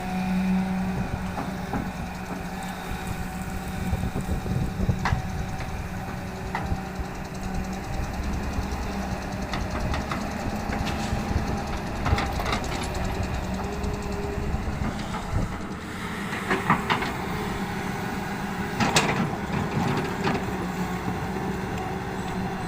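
Excavator's diesel engine running steadily, with scattered clanks and knocks from the working machine and its load.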